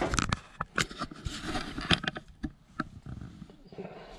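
Handling noise: a run of irregular clicks and light knocks, with the sharpest ones near the start and at about one and two seconds in.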